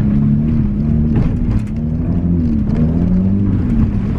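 Riding lawnmower engine running under load, its pitch rising and falling as the throttle varies, with a few short knocks and rattles from the mower over rough ground.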